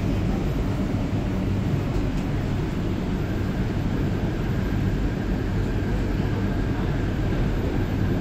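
Steady low rumble of a Guangzhou Metro Line 4 linear-motor train, heard from inside the carriage. A faint steady whine comes in about three seconds in as the train moves along the platform.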